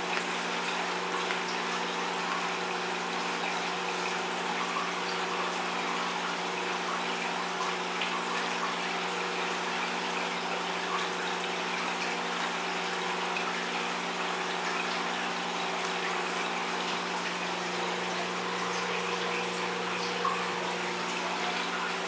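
Aquarium pump and filter running: a steady rush of moving, splashing water over a constant low electrical hum.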